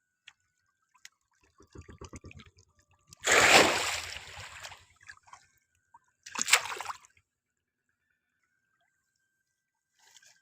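Water splashing and dripping in a river during prawn fishing at brush piles: small drips and crackles, a loud splash about three seconds in, and a shorter splash near seven seconds.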